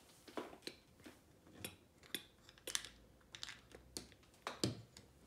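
Small plastic Lego pieces clicking and clattering as they are handled and snapped together: a string of irregular sharp clicks, the loudest a little before the end.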